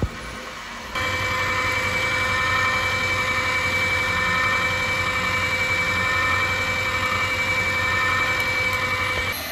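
A machine running with a steady hum and a constant whine of several held tones. It starts abruptly about a second in and stops just before the end.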